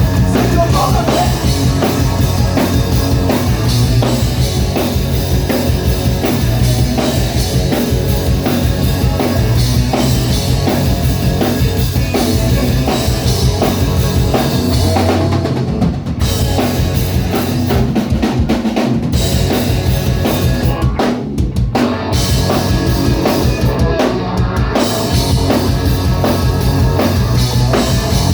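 Live rock band playing loud and full, the drum kit to the fore with bass drum and snare, and no singing. In the second half the band breaks off briefly several times, the cymbals and guitar dropping out for moments before coming back in.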